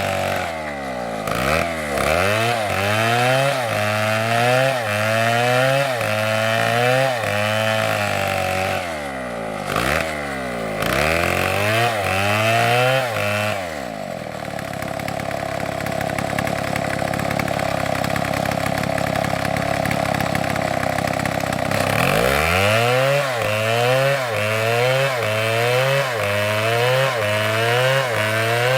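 STIHL chainsaw cutting wood, its engine pitch rising and falling about once a second. For about eight seconds in the middle it holds a steady, lower pitch, then the rising and falling returns.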